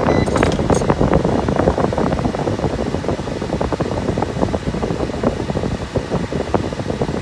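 A 2021 Nissan NV200's heater and A/C blower fan running steadily at a high setting, air rushing from the dash vents, with a few short clicks about half a second in.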